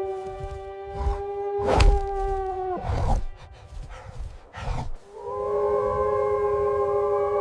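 Cinematic sound-design music: a held drone tone that cuts off about three seconds in, low hits with whooshes around the cut, then a new sustained chord from about five seconds in.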